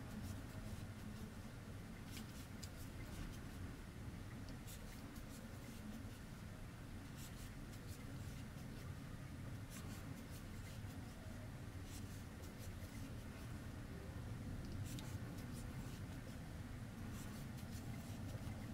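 Faint, irregular soft ticks and scratches of a metal crochet hook working yarn as stitches are made, over a low steady room hum.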